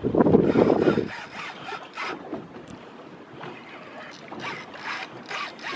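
Wind buffeting the microphone for about the first second, then water sloshing and splashing against the side of a small boat, with several short splashes.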